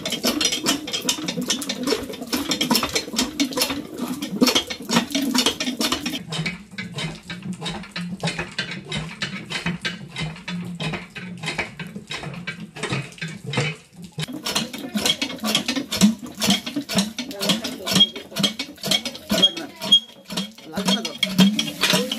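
Cast-iron tubewell hand pump worked fast: its handle, linkage and plunger rod clank and rattle in rapid repeated strokes. The pump has just been primed with water poured into the top and is being pumped to draw water up after the repair.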